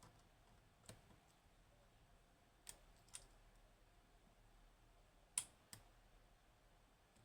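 Faint, scattered metal clicks from a pick working the pins of a Mottura C28+ dimple lock: about five clicks, the loudest about five seconds in, followed closely by another.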